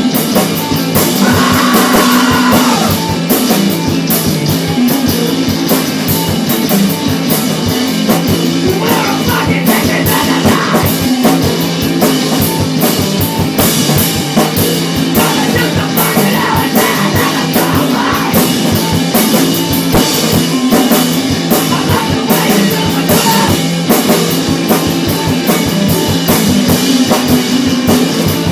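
Rock band playing a funky 60s-style number: a drum kit with a steady stream of fast cymbal strokes, and guitar over a moving bass line.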